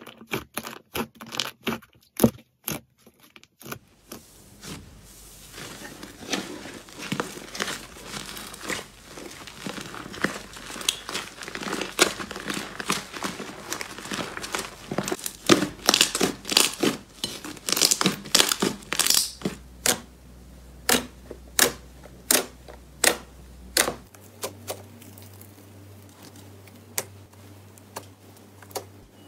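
Hands squeezing and kneading slime, making rapid sticky crackles and pops that thin out to scattered clicks near the end.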